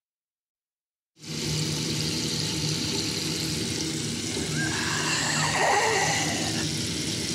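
About a second of silence between tracks, then a steady rushing noise with a low hum beneath sets in abruptly, with faint wavering tones rising and falling from about halfway: the atmospheric sound-effect opening of a metal album's intro track.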